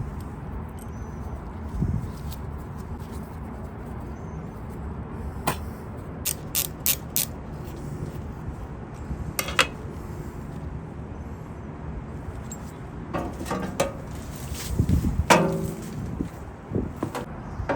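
Scattered metallic clinks and knocks of hand tools working on a table saw during disassembly, some in quick runs of three or four, over a steady low background rumble.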